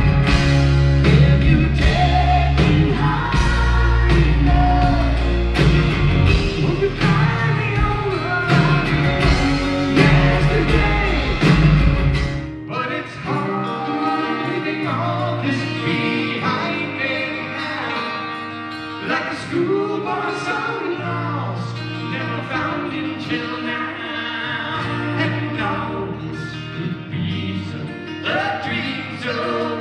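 Live rock band playing, with a man singing over electric bass and acoustic guitar. About twelve seconds in, the music cuts abruptly to another passage without the deep bass, and the singing carries on.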